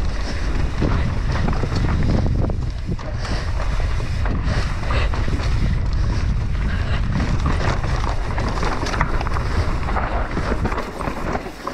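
Wind buffeting the microphone during a fast mountain-bike descent, a steady heavy rumble, with the tyres rolling over dirt and rock and short knocks and rattles as the bike goes over bumps.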